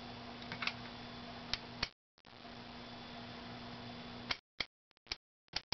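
Clicks of the Tektronix 310 oscilloscope's front-panel control knobs being turned, a few in the first two seconds and a quick run of about five near the end, over a steady low hum and hiss that cuts out twice.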